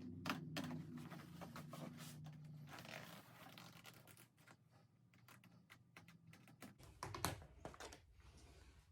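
Quiet scraping, rustling and small clicks of a car seat cover and its plastic attachment strips being handled, over a low steady hum that stops near the end.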